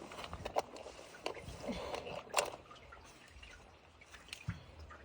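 Faint dripping and trickling water, with a few sharp, scattered clicks and knocks.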